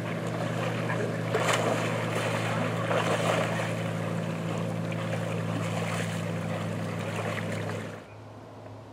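Water splashing as a dog swims and a person wades through shallow lake water, louder in surges about one and a half and three seconds in, with wind on the microphone and a steady low hum. The splashing and hum stop abruptly about eight seconds in, leaving a quieter hiss.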